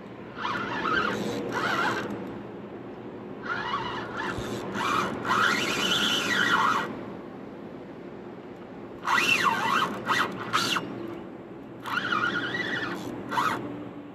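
Baitfeeder spinning reel's drag squealing as a hooked carp strips line off the spool, in four bursts of one to three seconds each.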